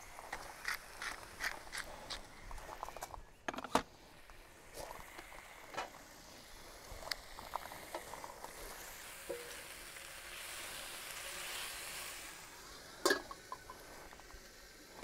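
Diced chicken frying in an oiled paella pan with a faint, steady sizzle. Over it come a quick run of light clicks from a pepper grinder in the first few seconds, then scattered taps of tongs against the pan and two sharper knocks.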